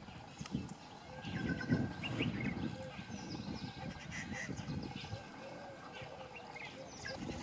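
Low, uneven rumbling from wind on the microphone, with small birds giving short, quick chirps in the background.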